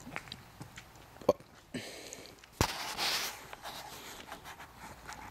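Scattered sharp clicks and knocks, the sharpest about a second and a quarter in and again about two and a half seconds in, followed by a brief rustle.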